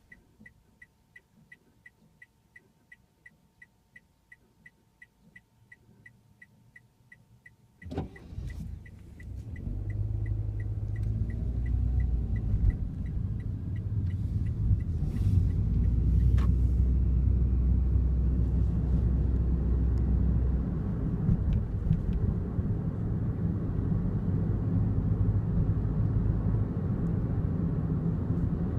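Inside a Daihatsu Wake: a quick, even run of short high ticks lasts about eight seconds, ends with a sharp knock, and is followed by the steady low rumble of the car running and moving.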